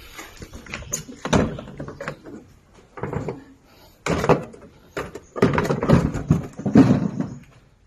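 A series of irregular knocks and thuds, about half a dozen, several of them drawn out over half a second or more.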